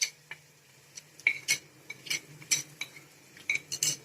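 A metal spatula stirring in a metal frying pan, clinking against its sides about a dozen times at an uneven pace, while onion, ginger-garlic paste, turmeric and salt fry in oil.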